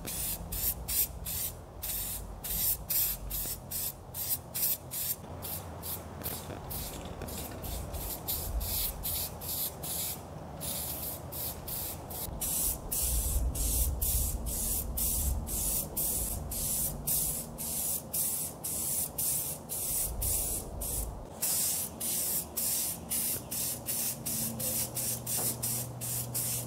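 Aerosol can of bed liner undercoating spraying in many short hissing bursts, a couple each second, with a few longer sprays, as a first coat goes onto a steel fuel tank.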